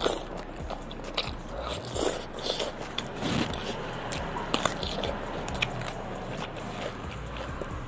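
Close-up eating sounds: wet chewing of raw squid, with many small crackling crunches, and a crisp bite into a whole raw cucumber about halfway through.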